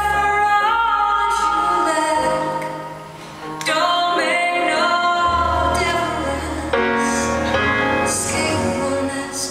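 A song with a woman singing long held notes over a bass line; the music dips briefly about three seconds in, then comes back louder.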